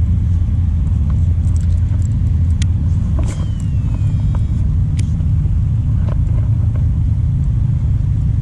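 A steady low rumble, with a few faint clicks and a short falling whistle about three seconds in.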